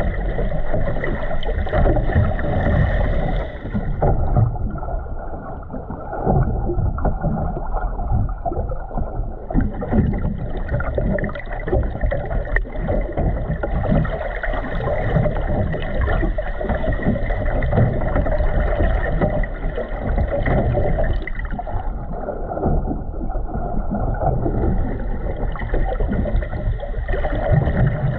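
Muffled underwater sound through a submerged camera's waterproof housing: a dense, steady low rumble with sloshing and gurgling of moving water.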